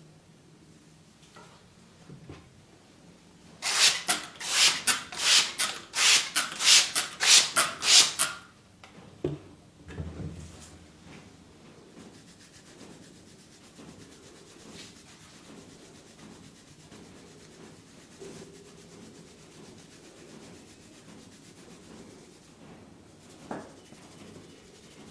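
Hands rubbing briskly in a massage, a quick run of about a dozen strokes over four or five seconds, followed a little later by a soft thump and then faint rustling.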